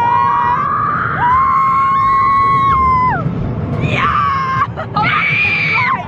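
Roller coaster riders screaming during the ride: a run of long, held, high-pitched screams, the last one higher than the rest, over a steady low rush of noise.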